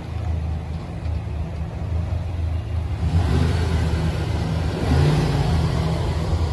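The Silverado's 6.0-litre gas V8 idling as a steady low hum. A broader rushing noise swells over it for a few seconds in the middle.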